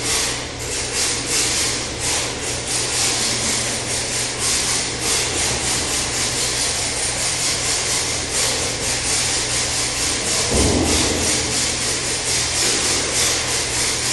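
Small electric RC drift car running on a tile floor: a rasping whir of its motor, gears and sliding tyres that pulses a few times a second. There is a brief louder low sound about ten and a half seconds in.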